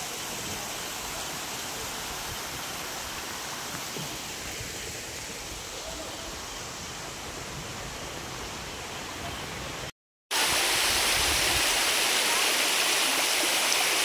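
Steady rush of a waterfall and creek water over rock. It cuts out briefly about ten seconds in and comes back louder, with more hiss.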